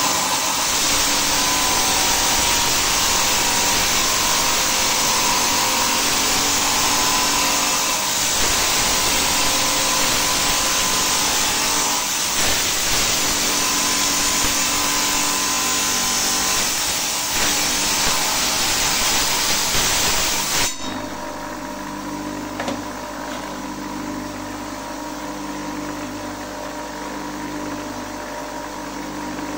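Stone-cutting saw cutting through agate: a loud, steady grinding hiss from the blade in the stone. About 20 seconds in, the cutting noise stops abruptly and only the saw's motor keeps running with a quieter, steady hum.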